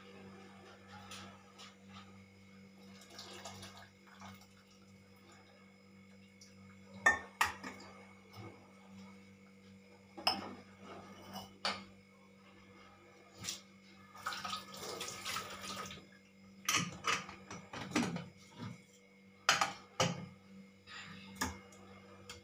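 Stainless steel pots and utensils clanking and knocking as they are handled and set down. The sharp knocks start about a third of the way in, with a brief rushing noise midway, over a steady low hum.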